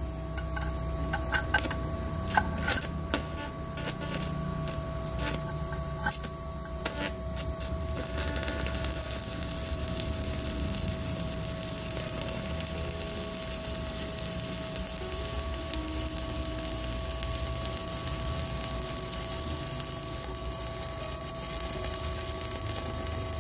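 Stick-welding arc from an inverter welder set to 90 amps, burning a 3.2 mm E6013 rod. For the first eight seconds it strikes in irregular sharp crackles, then it settles into a steady sizzling crackle over a steady whine. 90 A is a low setting for this rod: it burns, but looks a bit weak.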